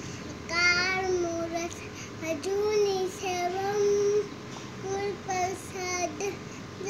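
A young boy singing solo with no accompaniment, in short phrases of held notes that slide and bend between pitches.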